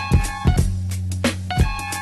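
Hip-hop instrumental beat playing: drum hits over a steady bass line, with a repeating pitched phrase on top.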